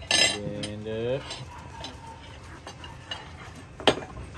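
Cutlery and dishes clinking on a table, with small scattered clicks and one sharp clink near the end that is the loudest sound. Near the start, a short drawn-out vocal sound with a sliding pitch.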